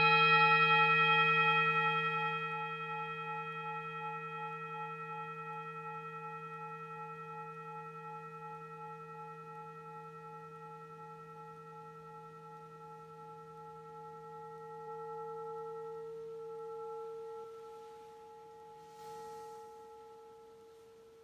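A metal singing bowl rings after one strike of its wooden mallet, with several tones at once, one of them wavering, and fades slowly. Near the end there is a brief soft noise as the bowl is set down on the mat, and its lowest tone stops.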